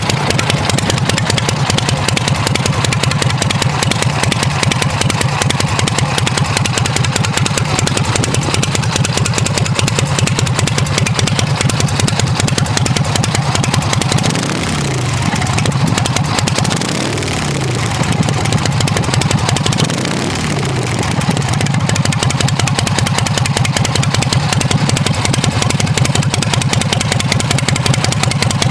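Harley-Davidson Shovelhead V-twin engine of a custom chopper running steadily. Around the middle its speed drops and then climbs again before settling back to a steady run.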